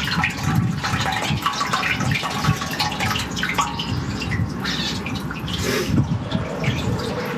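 Sewage water gurgling, sloshing and dripping in a flooded brick manhole chamber backed up by a blocked drain, with a drain-jetting hose submerged in it. The sound is irregular and uneven, with no steady hum.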